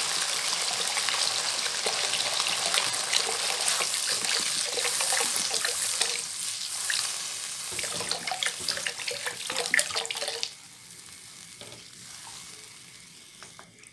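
Water poured in a steady stream into cooked masala in a wok, splashing while a silicone spatula stirs; the pouring stops about ten and a half seconds in.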